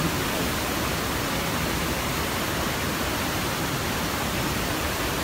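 Steady rush of a waterfall: an even, unbroken noise of falling water.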